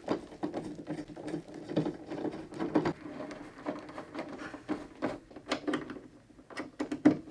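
Screws being driven in to fix pedestal feet to a TV: irregular clicks and scraping, quieter for a moment about six seconds in.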